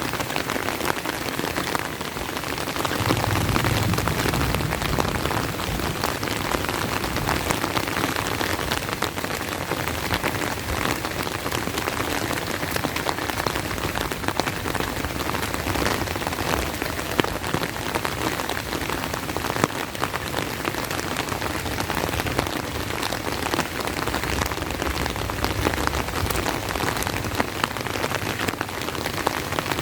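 Steady heavy rain, a dense patter of drops hitting surfaces all around. A low rumble swells briefly a few seconds in and again faintly near the end.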